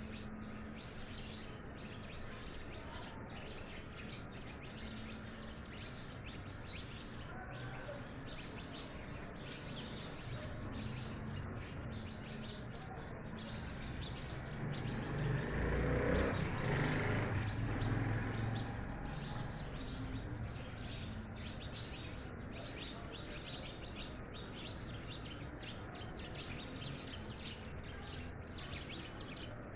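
A flock of house sparrows chirping continuously, many short overlapping chirps. About halfway through, a louder rushing noise swells and fades over a few seconds.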